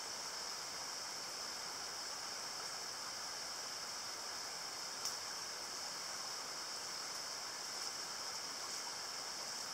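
Steady rushing of a creek running high after a day of rain, with a small click about five seconds in.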